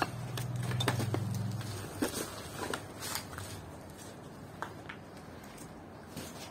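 Footsteps crunching and crackling on debris and rubble inside a collapsed building, in irregular steps and small scrapes. A pigeon coos low during the first couple of seconds.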